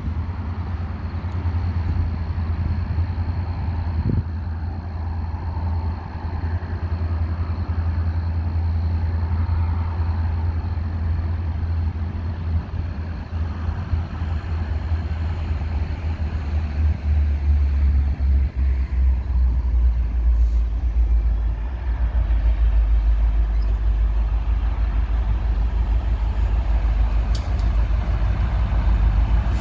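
Low, steady rumble of an approaching commuter train's locomotive, growing a little louder about two-thirds of the way through.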